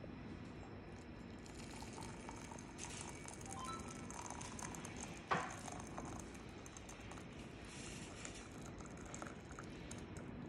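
Water pouring in a thin stream from a kettle into a ceramic mug, with one sharp click about five seconds in.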